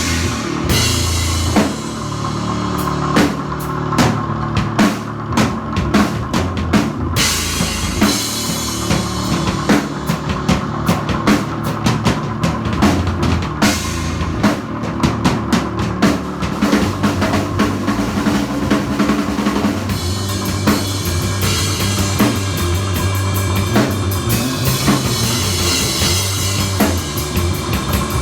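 Rock music driven by a full drum kit, with kick drum, snare and cymbals over a bass line. The cymbals grow denser over the last third.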